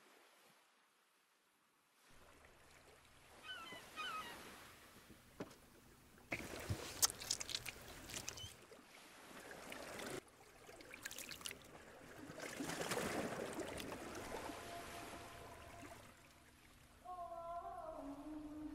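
Water splashing and sloshing around a small rowboat, with sharp knocks against the hull, after a near-silent start. A few held musical notes come in near the end.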